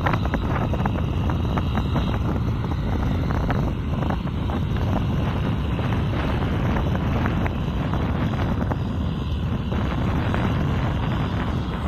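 Wind buffeting the microphone over the steady running of a distant Kubota M6040SU tractor's diesel engine as it works through a flooded, muddy field.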